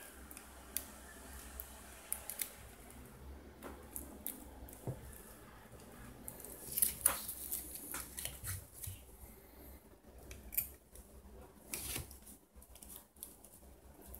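Metal tweezers clicking and scraping on the plastic frame and circuit board of an opened Alcatel One Touch Pixi 3 phone during screen replacement: scattered small clicks, with a quick run of clicks and scrapes about seven seconds in.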